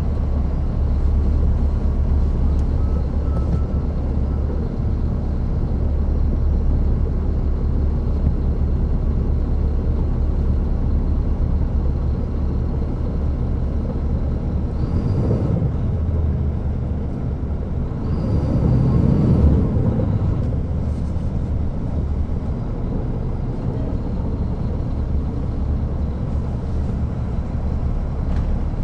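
Caterpillar C13 ACERT inline-six diesel of a 2009 NABI 416.15 transit bus, heard from the rear seats inside the bus, running steadily with a deep low drone. Two brief hisses come about halfway through.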